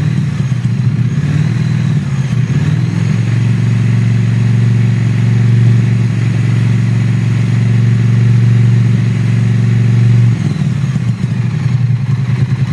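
Motorcycle engine idling, then held at slightly raised revs for several seconds before dropping back to idle about ten seconds in. The engine is kept running so the current in the charging system's three output wires can be measured.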